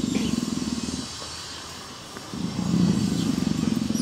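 African leopard purring, a low rattling purr that stops about a second in and starts again after a pause of about a second. The female is in heat.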